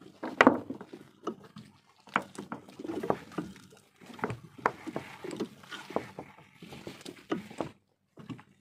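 A wet fishing net being hauled in by hand over the side of a wooden boat: irregular knocks, wet slaps and rustling as the net and water come aboard. The sounds stop a little before the end.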